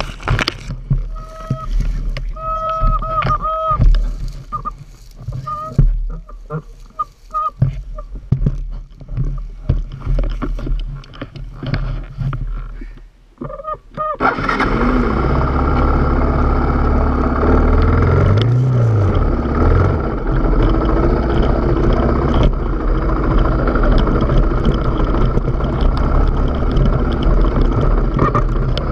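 Off-road vehicle engine running steadily under way from about halfway, with one brief rise and fall in revs. Before that, irregular rustling and knocks through bracken with a few short, honk-like tones.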